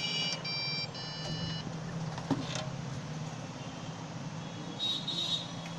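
Computer motherboard beeping at startup: long beeps of about half a second each, with short gaps, which stop about a second and a half in. This is the continuous startup beep of a PC that will not boot. After it comes a steady low hum, with a click and a brief higher sound later on.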